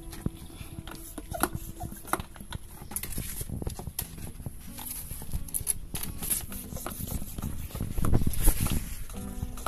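Plastic hand-pump pressure sprayer being worked: irregular clicks and knocks from its pump and trigger, with a louder hiss of spray near the end.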